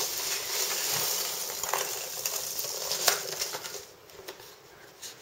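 Packaging foam being rummaged through in a cardboard box: a continuous crackly rustling that dies down about four seconds in, leaving a few light clicks.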